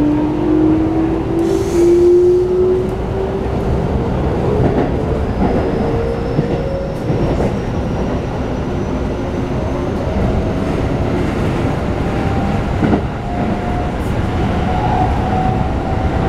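Inside a Keikyu New 1000 series electric train with Toshiba IGBT-VVVF inverter control: the inverter and traction motor whine climbs steadily in pitch as the train accelerates, over the rumble of wheels on rail. A short hiss comes about two seconds in.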